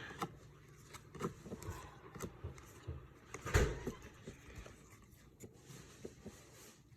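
Baseball trading cards being handled and slid past one another in the hands: scattered soft scrapes and taps, with one louder scrape and bump about halfway through.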